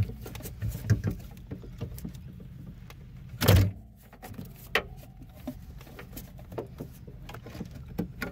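Plastic wiring-harness connectors being unplugged from a car's OnStar module and the harness handled: scattered small clicks and rustles, with one louder knock about three and a half seconds in.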